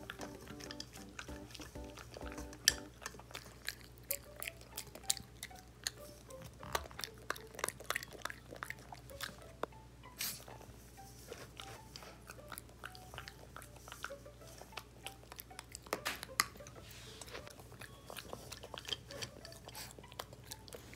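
Pekingese dog eating dry kibble mixed with baked sweet potato from a plastic bowl: irregular sharp crunches and chewing throughout, some louder than others.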